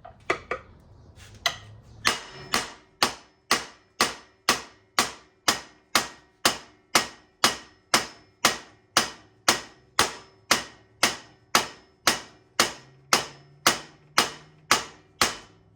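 Hammer blows on metal, a few uneven taps and then a steady run of strikes about two a second, each with a short metallic ring, driving a new nylon steering stem bushing home on a Suzuki LT-Z400's steering stem.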